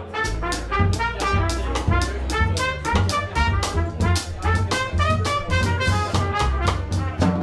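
Live jazz quartet playing: trumpet carrying the melody line over upright bass and drum kit, with evenly spaced cymbal and drum strokes keeping time.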